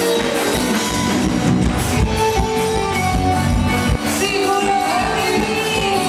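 Forró pé de serra played live by a band, with singing over a steady dance beat.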